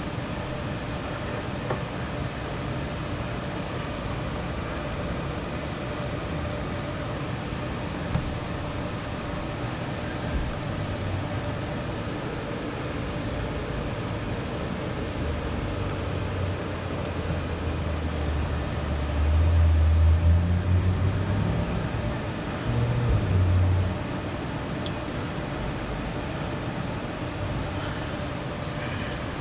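Steady background hiss with a few light clicks. A low rumble, like a passing vehicle, builds from about ten seconds in, is loudest around twenty seconds, swells once more and stops about twenty-four seconds in.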